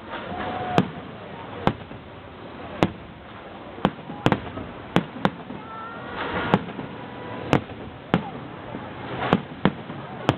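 Aerial fireworks bursting overhead: a dozen or so sharp bangs, about one a second at uneven spacing, over the chatter of a crowd.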